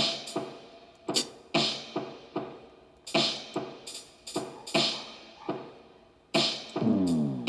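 A drum beat: sharp hits that ring briefly and die away, repeating in a steady pattern of about two to three hits a second. About seven seconds in, one hit carries a tone that falls in pitch.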